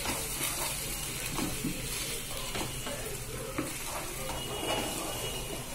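Spatula stirring and scraping vegetables and sauce around a nonstick frying pan, with a steady low sizzle as the Manchurian sauce is sautéed. The stirring strokes come about twice a second.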